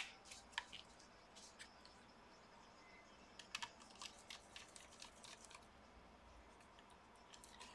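Faint, scattered small clicks and ticks of a precision screwdriver turning the tiny screw that holds an M.2 SSD in a laptop's slot, with one sharper click at the very start; otherwise near silence.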